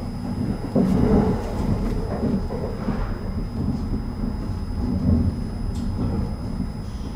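Running noise of a Kintetsu 80000 series 'Hinotori' electric train heard from inside at the front: a steady low rumble of wheels on rail that swells and eases a little.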